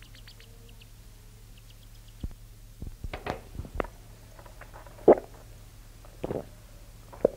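Steady low mains hum and tape hiss on a lo-fi home recording, with scattered knocks and bumps from about two seconds in, the loudest about five seconds in, as of people handling things in the room between songs.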